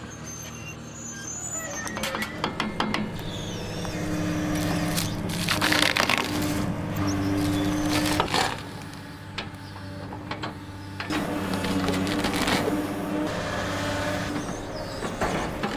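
Heavy tree-cutting machine at work: its engine runs under varying load, with many sharp cracks and knocks and a few hissing bursts over it.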